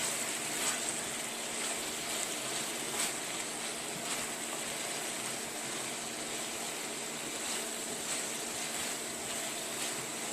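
Chicken sizzling in a pan: a steady hiss with a few faint crackles.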